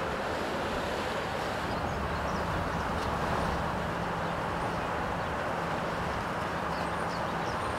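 Steady outdoor city background noise: an even rushing hiss with a faint low engine-like hum underneath, as of distant traffic or machinery.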